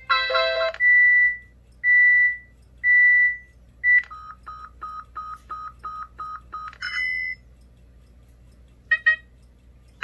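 A BlackBerry 8703's speaker playing its built-in alarm and notifier tones one after another as the tone list is scrolled. First the end of a chime, then four high electronic beeps about a second apart, then a quick run of lower repeated beeps. A couple of short chirps follow near the end.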